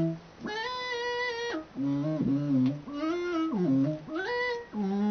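Electronic tone from a wireless 3-axis motion sensor, its pitch steered by the sensor's movement. It is a buzzy, overtone-rich note that holds a pitch, then slides up or down to the next, changing every half second to a second, with a few short breaks.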